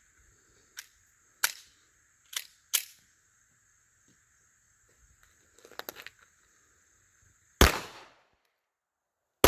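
Two shots from a Taurus Spectrum .380 ACP pocket pistol, about two seconds apart near the end, each a sharp report with a short ringing tail. Before them come a few lighter clicks and a brief metallic rattle.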